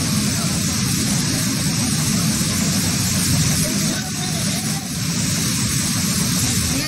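Heavy rain and floodwater running through a flooded street: a steady rushing noise, picked up on a phone's microphone.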